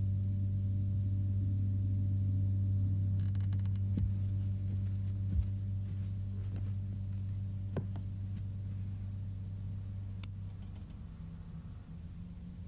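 A steady low droning hum, with a few faint clicks and ticks over it. The hum weakens about ten seconds in.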